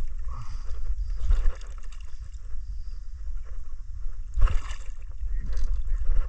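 Water sloshing and gurgling around a small fishing boat, over a steady low rumble, with two brief louder noises about a second and a half and four and a half seconds in.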